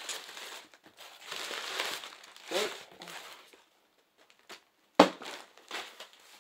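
Packaging and plastic crinkling and rustling as it is handled. About five seconds in comes a single sharp thump as a zip-top bag of Beyblade parts is set down on a table, followed by a few light clicks.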